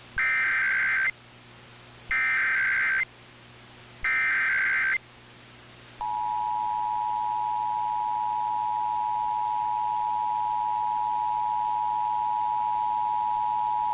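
Emergency Alert System alert start: three one-second bursts of screechy SAME header data tones, about a second apart, then about six seconds in the EAS attention signal, a steady two-tone beep of 853 and 960 Hz that holds on.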